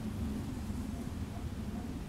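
Steady low rumble of outdoor background noise, with no distinct animal call.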